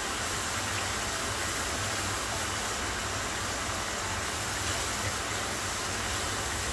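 Salmon steaks sizzling in a frying pan as their fish-sauce marinade boils down over high heat: a steady hiss, with a low steady hum underneath.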